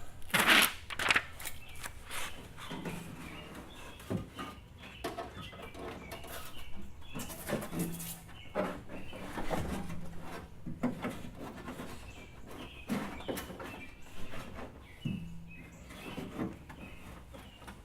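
Irregular clicks, knocks and rustling as peel-and-stick sound-deadening sheets are handled and pressed onto the inside of a car door's sheet-metal outer skin.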